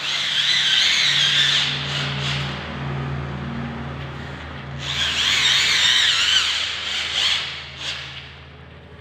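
Corded electric drill running under load as it bores into the bottom track of a UPVC partition frame. It has a steady motor hum, with a high whine at the start and again about five seconds in, and dies away near the end.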